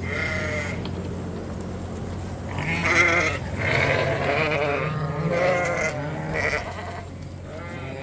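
Sheep bleating: a short bleat at the very start, then a run of about five quavering bleats from about two and a half seconds in.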